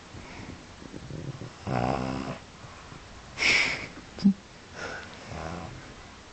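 Pug snoring in its sleep: a loud rattling snore about two seconds in, a higher, hissier breath near the middle followed by a short click, then softer snores near the end. The snoring is typical of a flat-faced breed's narrow airway.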